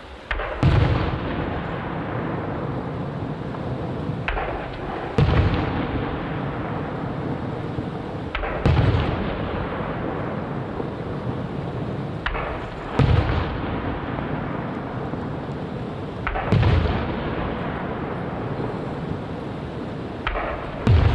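Aerial firework shells bursting, one about every four seconds, six in all. Each is a sharp crack with a deep boom, followed by a long rumbling tail that lasts until the next burst.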